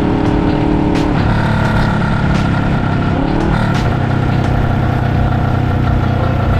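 Suzuki GS400 air-cooled parallel-twin running through an SP Charao-style exhaust with the silencer fitted, heard while riding. Its steady note changes abruptly about a second in, climbs around three seconds in, then holds steady.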